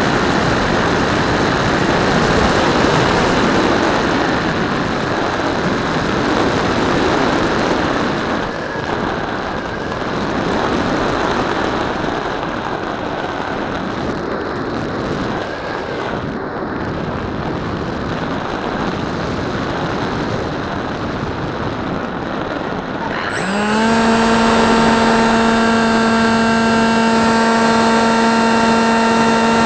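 Steady air rushing past an RC foam plane's onboard camera in flight. About 23 seconds in, the plane's electric motor and pusher propeller spin up with a quick rising whine that settles into a steady, loud high hum.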